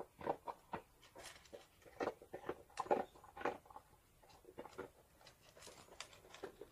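A dog moving about close by, making irregular small clicks and rustles.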